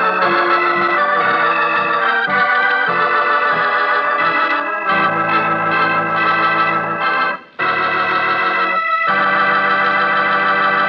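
Organ music closing the radio program: a run of changing sustained chords, a brief break about seven and a half seconds in, then one long held chord.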